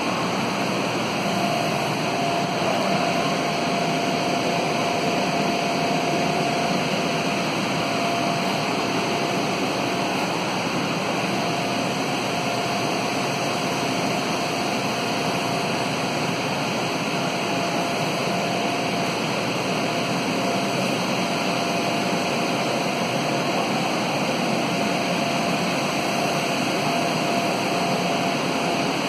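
Electric air blowers running steadily: an even rushing hum with a constant mid-pitched whine.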